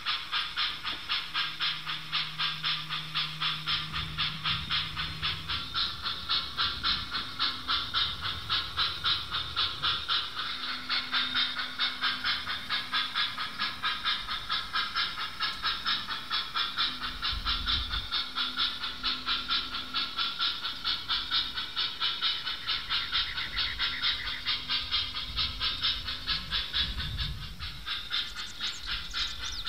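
Model train running on the layout: a steady, rapid pulsing hiss several times a second, with a low hum that comes and goes, easing off near the end.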